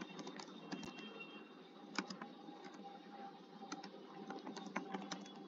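Computer keyboard typing: quiet, irregular key clicks.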